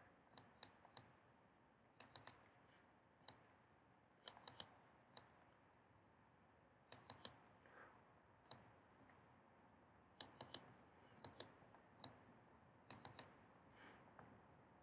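Faint computer mouse clicks, single and in quick pairs, scattered irregularly every second or so.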